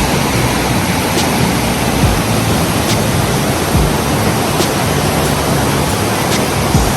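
River water rushing steadily, a loud, even wash of noise, with faint high ticks recurring about every second and a half.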